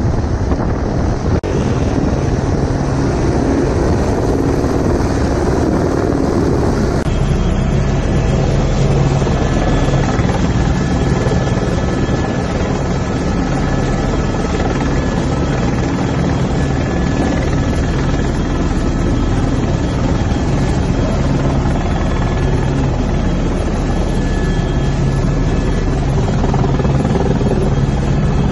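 Helicopter rotor and turbine running steadily, heard close up and loud: a constant low drone with a faint high whine over it. About seven seconds in, the sound turns duller.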